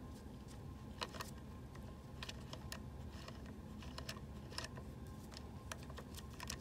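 Faint, irregular small clicks and ticks, about a dozen spread unevenly, as a 2.5 mm Allen wrench is worked against a screw to loosen it inside the printhead, over a steady low hum.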